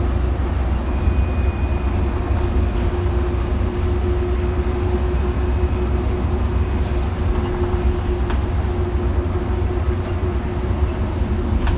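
Solaris Urbino 15 city bus driving, heard from inside near the front: a steady low drone of engine and road rumble with a constant hum above it. Small rattles and clicks are scattered throughout.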